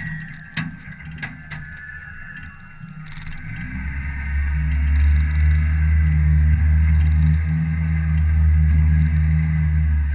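Outboard motor running under power: a steady low drone that builds from about three seconds in, holds loud, and drops off at the very end. A few sharp knocks come before it.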